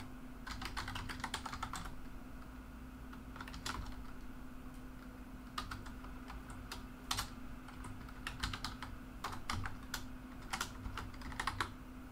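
Computer keyboard keystrokes typed in bursts: a quick run of taps at the start, then short clusters of a few keys every second or so, over a faint steady hum.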